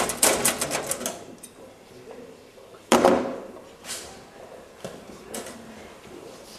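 Rapid metallic clicking and rattling of a padlock being forced with a small hand tool against a metal locker door, then one loud metallic bang about three seconds in and a few lighter knocks against the lockers.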